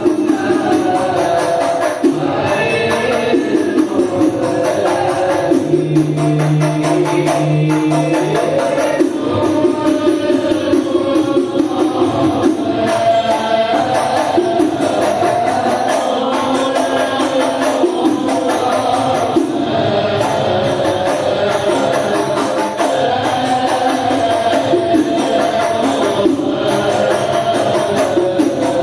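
Shalawat, an Islamic devotional song, sung by voices over a steady, dense beat of hand-played frame drums (hadrah/rebana).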